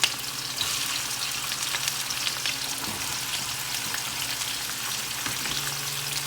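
Onions frying in hot oil in a pan: a steady sizzle full of fine crackles.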